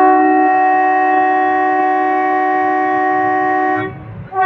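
Metre-gauge train's locomotive horn sounding one long steady blast of several held tones, then a short second blast near the end.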